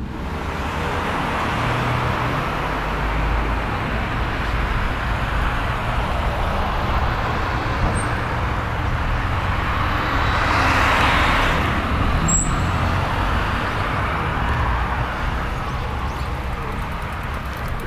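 Road traffic noise: a steady rush of cars and tyres on the road, swelling as one vehicle passes about ten seconds in.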